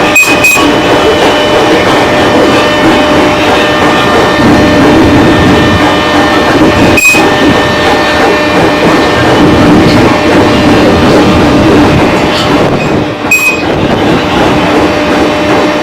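JR 205 series electric commuter train running, heard loud from on board: rolling noise mixed with a steady motor hum holding several fixed pitches, with brief dips about 7 and 13 seconds in.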